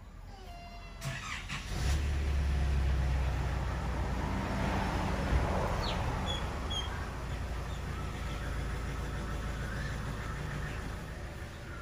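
A motor vehicle's engine running close by, a low steady hum that comes in about two seconds in, is loudest around the middle and fades near the end. A puppy gives a short, falling whimper at the start.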